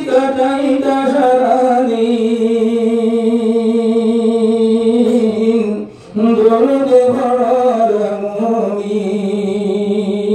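A man singing a Bengali Islamic ghazal unaccompanied into a handheld microphone, holding long, wavering notes, with a brief break for breath about six seconds in.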